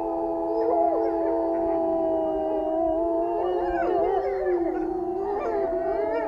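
A chorus of wolves howling: several long, steady howls held at different pitches at once, with shorter wavering howls rising and falling among them in the middle.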